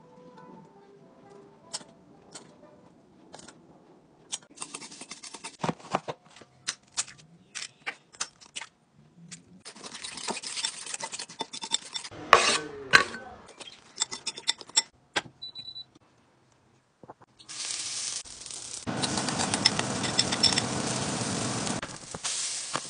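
A spoon clinks and scrapes in a ceramic bowl as an egg batter is stirred. Later, a steady sizzle starts as the batter fries in a frying pan.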